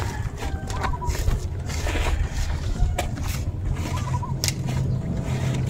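Steady low engine hum, with scattered dry crackles and rustles of nipa palm leaves being handled and threaded into a thatch panel.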